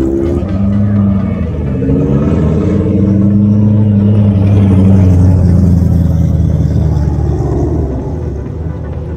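Deep engine rumble of high-performance cars rolling slowly past at low revs, one after another, with a slight rise and fall in pitch about two seconds in. It swells toward the middle and eases off near the end.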